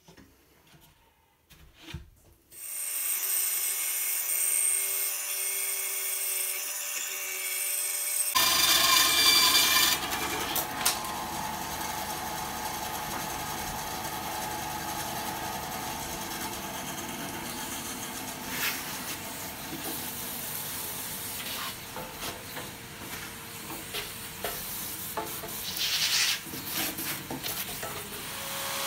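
A few faint clicks, then about two and a half seconds in a machine starts and runs steadily. From about eight seconds in it turns louder and hissier: a benchtop band saw running with a vacuum hose sucking up sawdust from its table.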